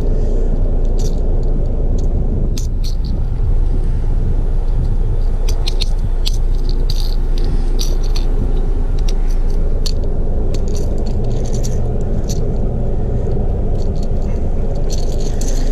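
A steady low rumble throughout, with scattered light metallic clicks and jingles from fishing pliers and a lure's hooks as the lure is worked free from a largemouth bass's mouth.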